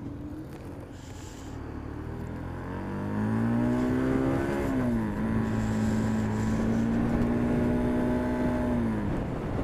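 Motorcycle engine pulling away with a rising note, changing up a gear about halfway through, then running at a steady pitch before easing off near the end.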